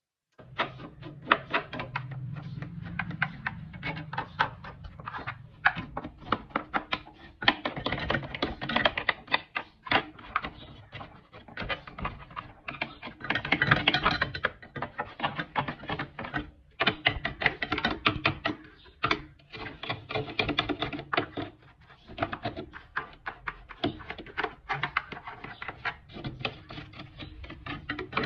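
Rapid, irregular clicking and tapping of hand work on the refrigerator, with a brief low hum in the first few seconds and a louder, busier patch about halfway through.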